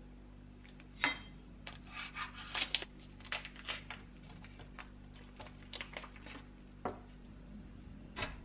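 Thin plastic wrapping crinkling and tearing in short bursts as it is peeled off a cake of panela sugar. Near the end, a knife cuts down onto a wooden cutting board with one sharp knock.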